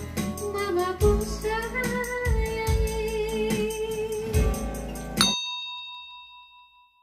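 A woman singing a long held note over a strummed acoustic guitar, in an Ambonese pop song. About five seconds in, the music cuts off and a bright bell-like ding sounds and fades.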